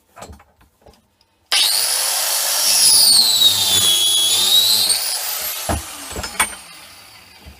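An angle grinder starts up and cuts through a copper welding-torch cable, its whine dipping in pitch under load and then recovering. It is then switched off and winds down, with a couple of sharp knocks near the end.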